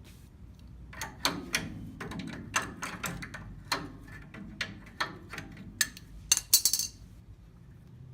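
Irregular metallic clinks and clanks of a wrench and loose steel suspension hardware being handled. There are about a dozen sharp strikes from about a second in, ending in a quick loud flurry near the end.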